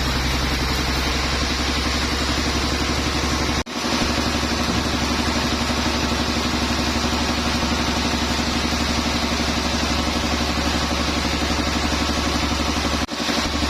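Sawmill machinery running steadily: an engine drone with a broad hiss over it. The sound drops out abruptly twice, about four seconds in and near the end.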